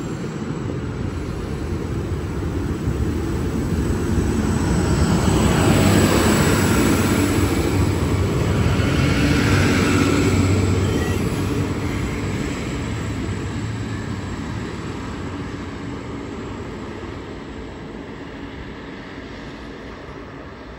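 Diesel passenger railcar passing close through the station, engine note and wheel rumble building to a peak a few seconds in, then fading as it runs away down the line.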